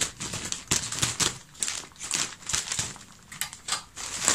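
Scissors snipping through a plastic courier packet in a run of irregular sharp cuts, with the plastic crinkling as the packet is pulled open.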